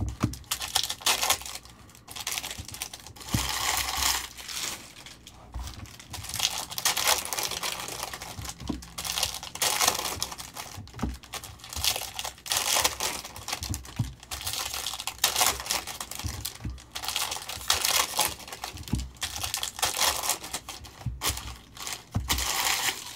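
Foil Panini Select card-pack wrappers crinkling and tearing open, in repeated rustling bursts, with small clicks and slides of a stack of trading cards being handled in between.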